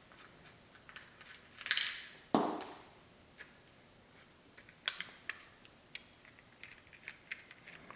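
Small hard parts of a 220-volt welder plug being handled as the cord clamp is taken out: scattered light clicks, with a louder scrape and clatter about two seconds in.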